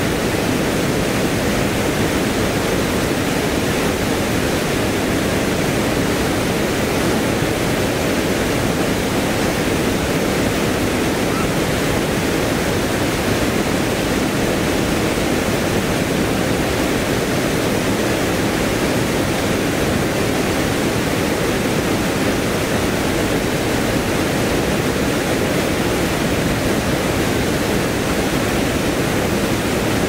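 Water pouring over a concrete weir into a river pool: a loud, steady rush of falling water.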